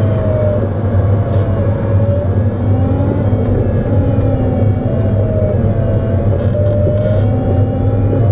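Steady rumble of airflow around a glider cockpit on a fast final glide, with a faint thin tone that keeps wavering up and down in pitch.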